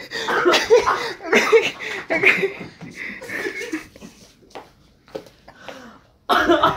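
People laughing and chuckling, dying down to quiet after about four seconds, with a few faint clicks; a sudden loud burst of voices comes in near the end.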